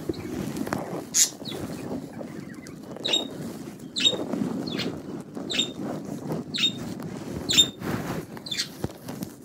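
Caged pet budgerigars calling: a short, sharp chirp that falls in pitch, repeated about once a second, over a low, steady background murmur.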